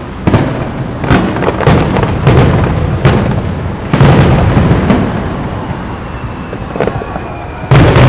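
Aerial fireworks shells bursting in quick succession, each sharp boom followed by a long rolling echo, with a faint whistle just before a big burst near the end.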